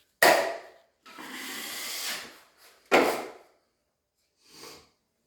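Drywall knife scraping joint compound: two short, sharp scrapes with a longer, even scrape between them and a faint short one near the end.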